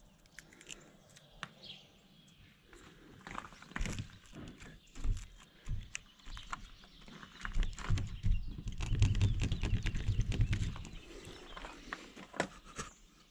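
Footsteps and handling noise from a hand-held camera moving along a fence: scattered irregular clicks and knocks. A low rumble on the microphone for a few seconds past the middle.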